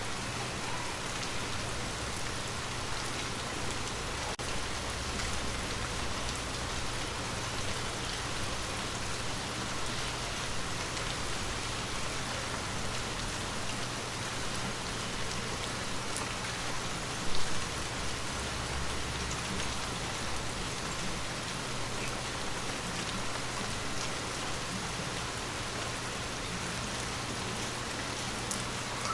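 Steady rain falling on a window, an even hiss with scattered drop ticks and a steady low hum underneath. A single brief low thump sounds about two-thirds of the way through.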